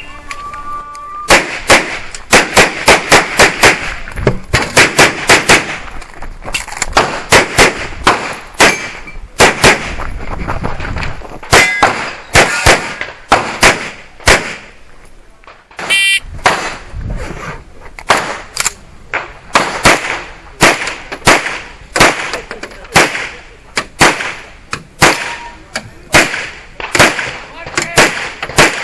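Handgun shots fired in rapid pairs and strings during an IPSC practical shooting stage, several dozen in all, with short gaps between groups as the shooter moves or reloads. A metallic ring about halfway through.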